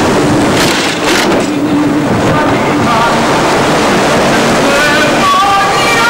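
Heavy wind noise and rushing sea from a sailing yacht under way in rough water, a loud, steady roar. Near the end a few wavering high tones rise above it.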